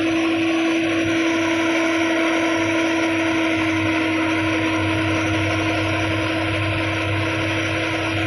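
New Holland combine harvester running steadily while harvesting wheat: a constant mechanical drone with a steady mid-pitched whine over it.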